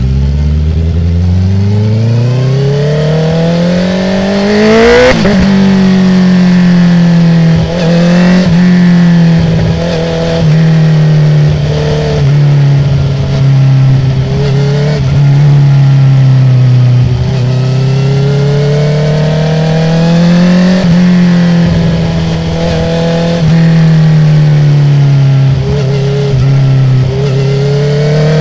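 2019 Honda CB650R's inline-four engine through an open Akrapovic full exhaust with no dB killer: it revs up for about five seconds, then a sharp quickshifter upshift. After that the note rises and falls with the throttle through the bends, broken every second or two by short gaps with popping as the throttle closes.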